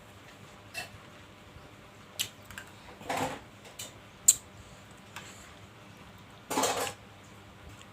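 Close-miked eating sounds: a few sharp clinks of a spoon against a bowl, and two longer stretches of eating noise, one about three seconds in and one near the end.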